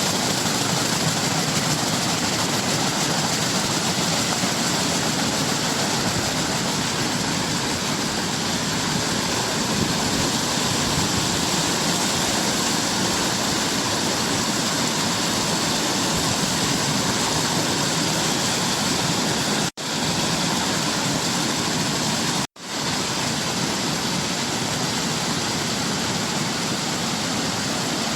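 Waterfall: a steady, continuous rush of falling water. It cuts out for a split second twice, about 20 and 22 seconds in.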